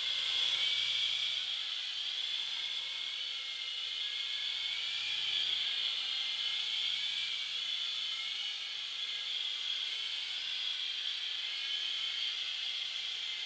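Electric motors and rotors of an S006G three-channel coaxial mini RC helicopter in flight: a steady high whine whose pitch wavers slightly.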